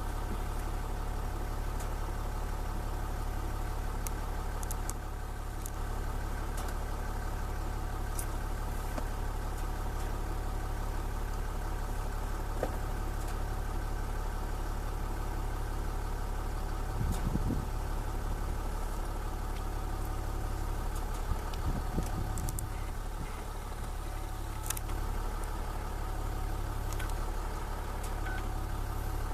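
Land Rover Discovery 4 engine idling steadily, with a couple of short low thumps a little past halfway and again a few seconds later.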